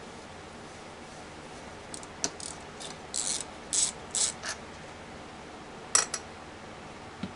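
Hand-tool work on a small transmission's metal case: a run of short, rattling metal bursts in the middle, then a couple of sharp metal clicks about six seconds in, the loudest sounds here, and one more near the end.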